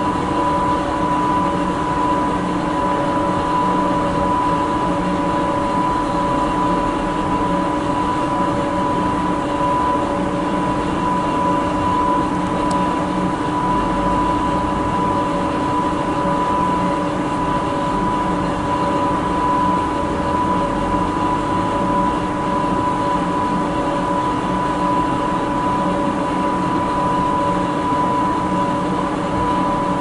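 Montmartre funicular's hoist machinery running steadily: an even machine drone with a steady high hum and several lower hum tones beneath it, over a low rumble.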